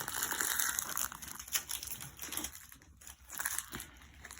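Crinkling of plastic packaging being handled, loudest in the first second and a half and then fainter, with a few light clicks.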